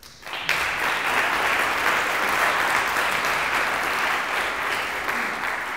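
Audience applauding, breaking out a moment after the start and going on at an even level.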